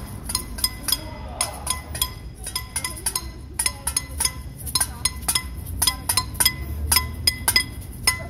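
Metal noisemakers struck again and again, about four strikes a second, each one ringing on. The strikes thin out briefly about two to three seconds in, then come thick again.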